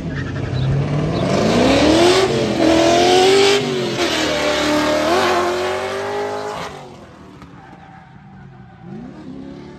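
Drift car going by sideways: its engine revs climb steeply and then hold high, wavering, over a broad rush of sliding-tyre noise, and the sound falls away about seven seconds in. Another car's engine starts rising faintly near the end.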